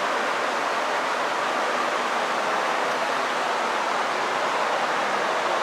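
A blower running, giving a steady rushing air noise that does not change.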